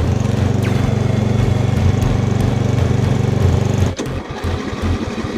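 Craftsman riding lawn mower engine running steadily. About four seconds in, after a click, it changes abruptly to a choppier, uneven idle.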